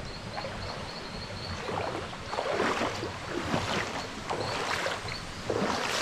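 Footsteps wading and splashing through a shallow stream, over a steady rush of flowing water, the splashes coming irregularly, thicker about halfway through and again near the end.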